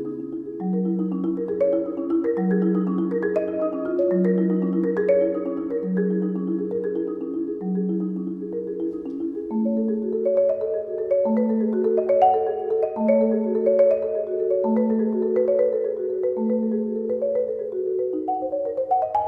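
Solo concert marimba played with four mallets: quick repeated notes in the middle register over a low note struck a little under every two seconds. The low note steps up slightly about halfway through, and the upper notes climb in pitch near the end.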